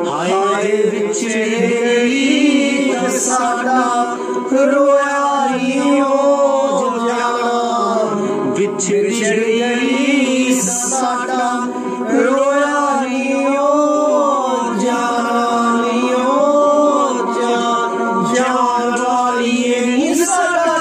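A man singing into a handheld microphone, holding long notes that waver and bend in pitch.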